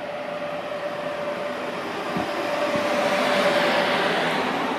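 SBB double-deck InterRegio train, pushed by an Re 460 locomotive at the rear, departing and rolling past. A steady rolling rumble of wheels on rail carries a held whine and grows louder as the front coaches pass, with a couple of light knocks from the wheels.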